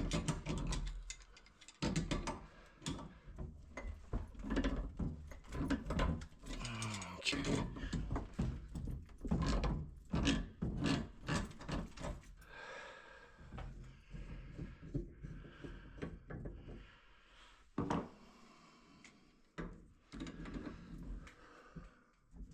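Hands-on work noise from handling tools and pipe parts: a busy run of knocks, clacks and scraping for about twelve seconds, then sparser, quieter rubbing and a sharp knock near the end.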